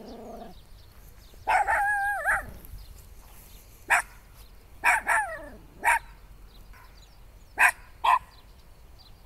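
Small dog barking at a stranger, guarding its yard: one drawn-out bark about one and a half seconds in, then six short sharp barks, singly and in pairs.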